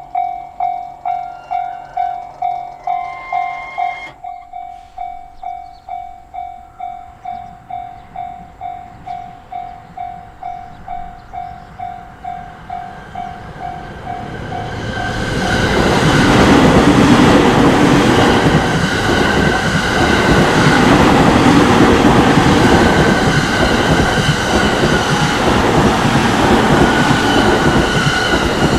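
Japanese level-crossing warning bell ringing at about two strikes a second. About halfway through, a JR Takasaki Line train passes over the crossing, and its running noise and wheel clatter drown the bell for about thirteen seconds. The bell is heard again at the very end.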